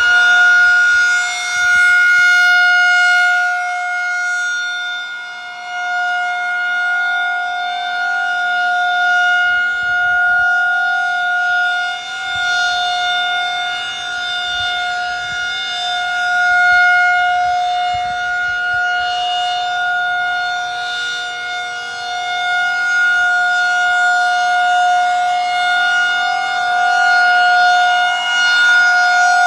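Federal Signal 2001 SRN 12-port electromechanical outdoor warning siren sounding a full-alert steady tone. The pitch holds steady while the loudness swells and fades every few seconds as the rotating horn sweeps past.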